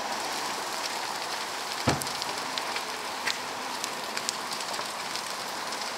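Large structure fire burning with a steady crackling hiss, short pops scattered through it. One loud sharp bang comes about two seconds in, and a smaller pop a little after three seconds.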